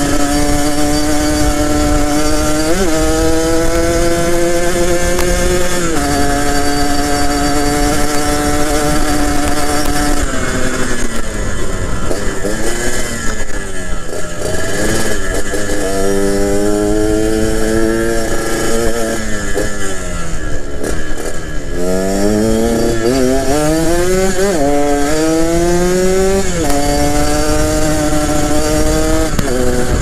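Yamaha RX-King's single-cylinder two-stroke engine through a B2M aftermarket racing exhaust, heard from the saddle while riding. Its pitch holds steady and climbs slightly for the first ten seconds, with a short drop at about six seconds, then falls away and rises again several times, ending in a string of short rising sweeps one after another.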